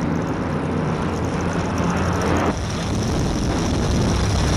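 Offshore racing powerboat engines droning steadily, with a short dip in the sound about halfway through.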